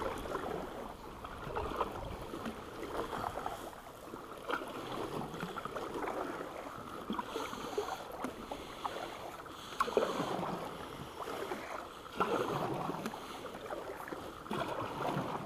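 Kayak paddle strokes: the blades swish and splash through the water, with a swell every couple of seconds as each stroke is taken from the sit-on-top Bonafide SS107 kayak.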